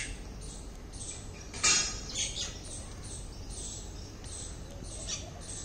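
Common myna calling: short high chirps and whistles scattered through, with one louder call about a second and a half in.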